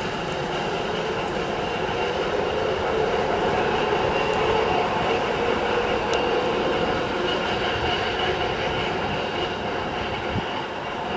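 ChME3 shunting diesel locomotive running light round a curve: its six-cylinder ČKD diesel engine runs steadily under the rumble of wheels on rail, with a thin high squeal of wheel flanges on the curve. The sound eases slightly near the end as it draws away.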